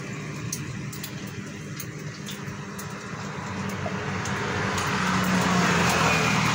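A motor vehicle's engine running, with traffic-like noise that grows louder over the second half.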